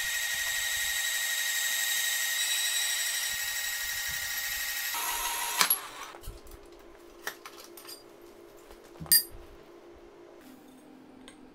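Asada Beaver 6F portable band saw cutting through a metal pipe, the blade ringing with a steady high whine. It ends with a sharp click just past halfway as the cut finishes and the saw stops. After that there is a low hum with a few knocks and one loud clang of metal a few seconds later.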